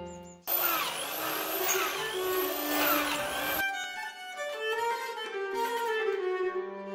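Background music on bowed strings. About half a second in it breaks into roughly three seconds of dense, noisy sound with swooping rises and falls in pitch, then the string melody returns.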